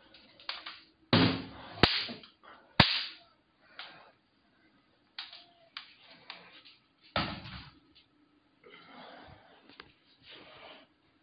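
A run of sharp slaps and knocks, the loudest about a second in, about three seconds in and again about seven seconds in, with quieter rustling and handling noise between.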